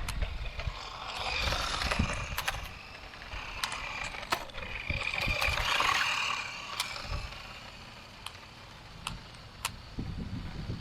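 Light mechanical clatter and scattered clicks, with two longer swells of rushing noise about a second in and about five seconds in.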